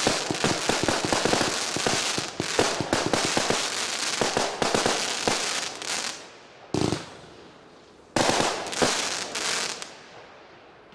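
Lesli McFat 144-shot, 25 mm compound firework cake firing its finale as a dense run of rapid pops and bangs from bursting shells. The run thins out about six seconds in, then comes a single burst, a last short cluster of pops, and it dies away near the end.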